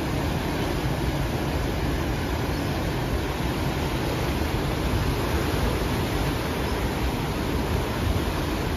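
Ocean surf churning and washing over rocks, a continuous rush of water with a deep rumble underneath and no distinct breaks.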